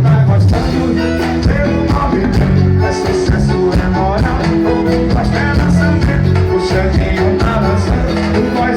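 Live forró band music played loudly over a concert sound system, with a steady beat.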